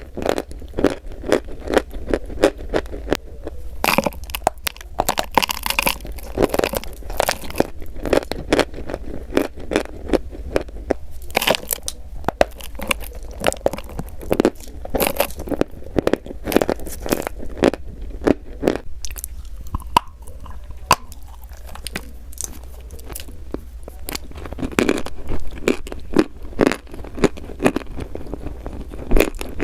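Close-miked chewing of something crunchy: dense, irregular crackling crunches and bites, one after another.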